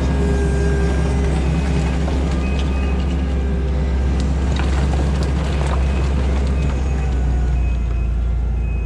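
Kubota SVL90-2 compact track loader's diesel engine running steadily under load, with a held hydraulic tone, while its tooth bucket digs into hard ground. Scattered scraping clicks of the teeth against dirt and stone.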